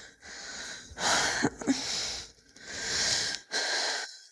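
A woman breathing heavily, with about four long, audible breaths in a row.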